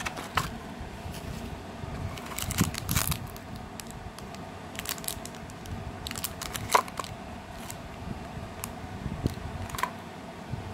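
Cardboard packaging being handled: a white box and its inner tray lifted and shifted by hand, with scattered taps, clicks and light crinkles of plastic bags. There is a cluster of rustles about two and a half seconds in and a sharper click near the seven-second mark.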